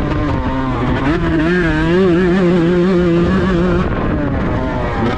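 Kawasaki Ninja motorcycle with a tuned grasstrack engine, running at fairly steady revs, its pitch wavering up and down slightly.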